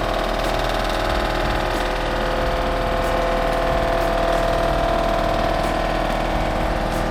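An engine or motor running steadily, a constant mechanical hum that rises a little in the middle.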